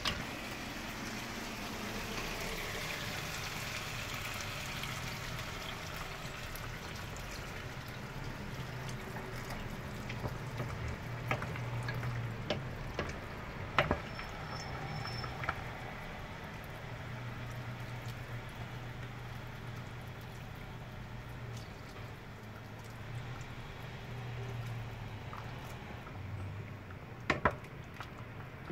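Hot water poured into a pot of penne in tomato sauce as a wooden spoon stirs it. A few sharp knocks of the spoon against the pot, the loudest a double knock near the end.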